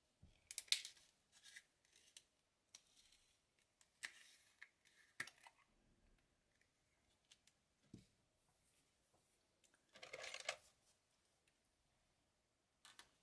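Faint handling sounds of a plastic bottle of white acrylic paint: the cap being opened and paint squeezed out onto a palette, heard as scattered small clicks and short rustling scrapes, with the longest rustle about ten seconds in.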